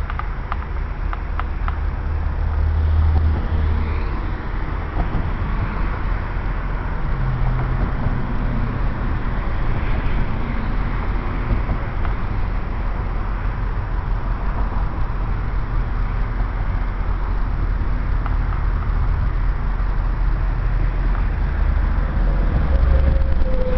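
Wind rumbling on the microphone over the running of approaching diesel locomotives, a CP GP38-2 and an F9B with EMD two-stroke engines, pulling a passenger train. The locomotive sound grows slightly louder toward the end as the train nears, and a steady tone starts near the end.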